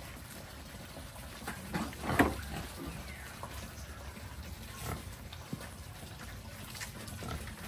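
Sows grunting now and then as they feed on leafy greens, with the loudest grunt about two seconds in.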